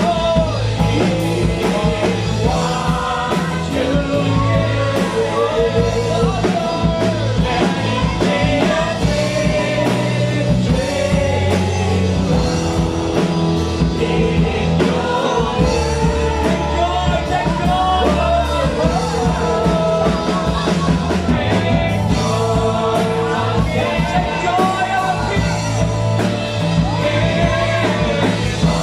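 Church worship music: a band with bass and drums playing while a voice sings the melody.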